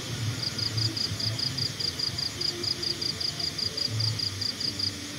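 An insect chirping steadily, about five short high-pitched chirps a second, which stop just before the end, over a low uneven rumble.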